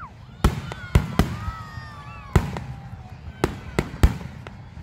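Aerial fireworks shells bursting: about seven sharp bangs at uneven intervals, with gliding whistle-like tones between them.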